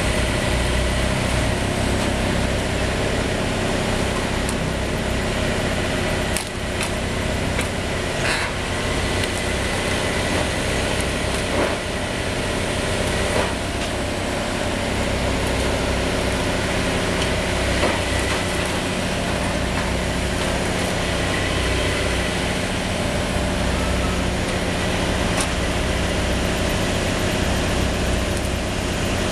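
Truck-mounted drum wood chipper running steadily under heavy engine power while a tree trunk is fed into it, with a few sharp cracks of the wood being chipped.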